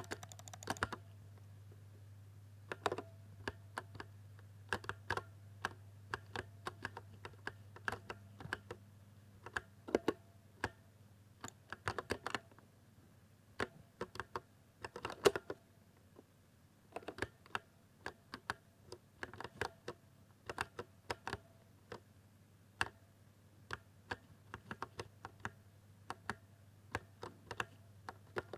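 Typing on a silver RGB 60% keyboard: irregular keystrokes in quick runs with short pauses between them.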